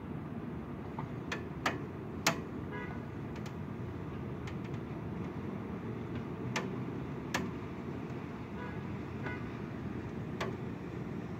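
Steady low rush of wind and rain, with irregular sharp ticks of raindrops landing close to the microphone, two of them louder a couple of seconds in.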